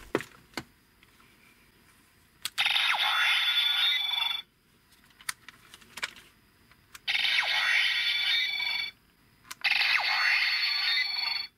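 Bandai DX Drill Crusher toy weapon playing its electronic sound effects through its small speaker: a couple of clicks, then three bursts of about two seconds each with short gaps between them.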